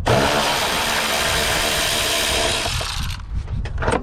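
Cordless power driver spinning a T30 Torx bit on a headlight screw, running steadily for about three seconds and then stopping.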